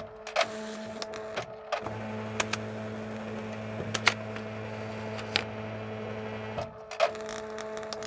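Fax machine running: a steady mechanical whir with repeated sharp clicks. The whir drops out briefly near the start and again about a second before the end.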